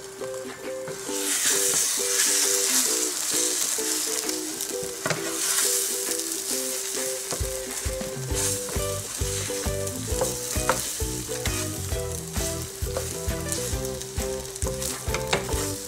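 Beaten eggs sizzling in hot oil in a nonstick pan as a wooden spatula stirs and scrapes them into scrambled pieces. The sizzle swells about a second in and again around five seconds. Background music plays underneath, with a bass line joining about halfway.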